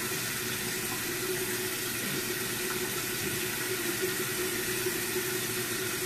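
Bathroom sink tap running steadily while a face is rinsed with the hands.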